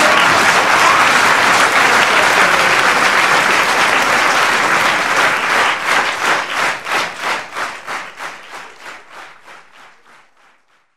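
Theatre audience applauding. The applause turns into rhythmic clapping in unison about halfway through, then fades out.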